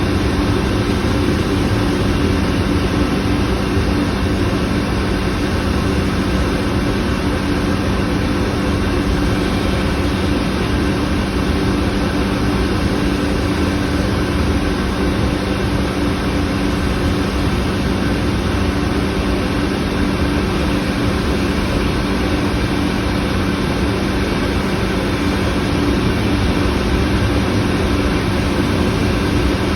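Bryan steam boilers running: a loud, steady, unbroken rushing noise with a low, even hum.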